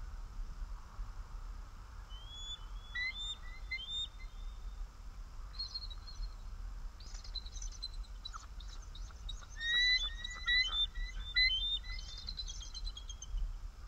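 Bald eagles giving thin, high chattering calls in runs of quick piping notes, the calls of a pair warning off intruders near the nest. The calls come in bursts that grow denser and are loudest about ten seconds in, over a steady low rumble.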